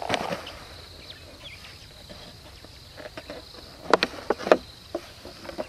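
Lion chewing a small plastic bottle: a few sharp crinkling crackles, the loudest about four seconds in and again half a second later, over a steady high hum of insects.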